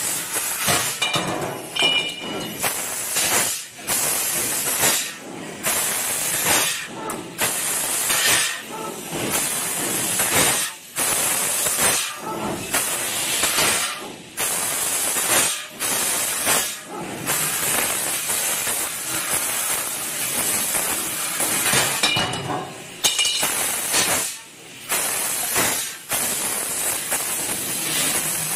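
Golden Laser P2060A 1000 W fiber laser tube cutter cutting metal tube: a loud hiss of assist gas blowing through the cutting head, stopping for a moment every second or two between cuts.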